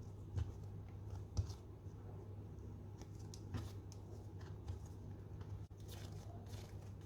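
Soft rustling and light taps of hands working food and utensils on a kitchen counter, with a few sharper clicks about half a second and a second and a half in, over a steady low hum.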